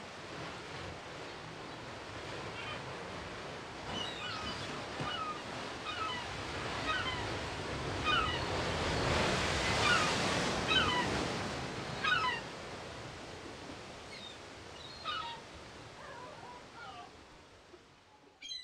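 Sea waves washing, swelling to a peak about halfway through and then slowly fading, with short falling bird cries scattered over them. The sound cuts off abruptly at the end.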